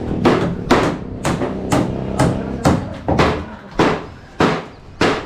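Hammer blows, about two a second, each a sharp knock, with a longer gap about three seconds in.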